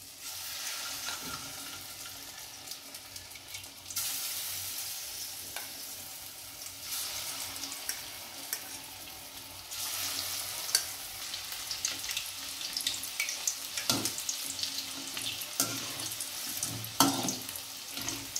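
Marinated chicken kebab pieces deep-frying in hot oil in an aluminium kadai: a steady sizzling hiss that grows louder in steps as each new piece is dropped in, about 4, 7 and 10 seconds in. Sharp clinks of a metal spoon against the pan come through the second half.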